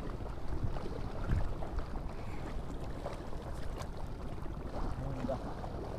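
Wind buffeting the microphone, a steady low rumbling noise, with a faint voice near the end.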